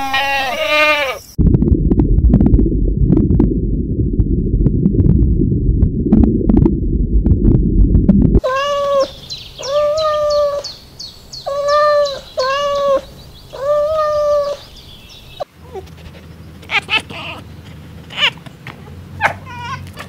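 Sheep bleating briefly, then a loud low rumble for several seconds. Then a domestic cat meowing repeatedly, seven or eight drawn-out meows, and near the end fainter short calls and clicks.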